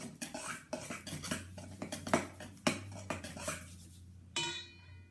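Utensil scraping and clinking in a bowl as slime is stirred, a rapid run of irregular clicks and scrapes. Near the end a plucked-string note of background music comes in.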